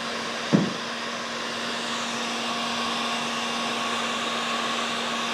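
Makita heat gun blowing steadily with a low hum, drying a freshly glued decorative moulding on a mirror. A brief thump about half a second in.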